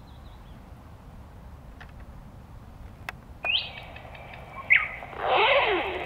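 Nightingale singing. About halfway in comes a rising whistled note held for a moment, then a sharp short note, and near the end a loud, dense, rattling phrase.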